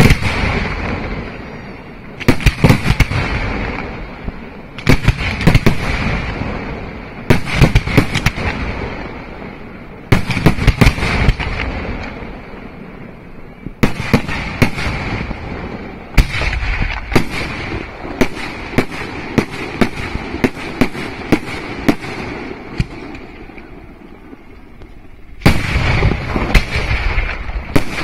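Aerial firework shells bursting in volleys, each a cluster of sharp bangs with echoing crackle trailing off, coming every two to three seconds. About halfway through, a quicker run of single reports follows, then a heavy, dense volley near the end.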